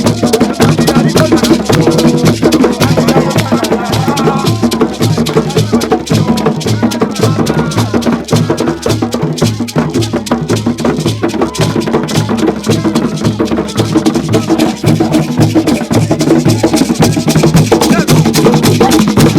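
African drum ensemble playing a fast, steady beat, with a repeating low drum pattern under dense strokes and shaker or rattle accents.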